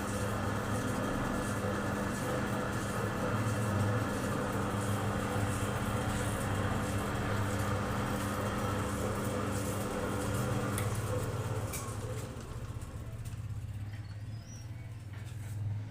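A steady mechanical hum, like a running motor, that fades out from about eleven seconds in.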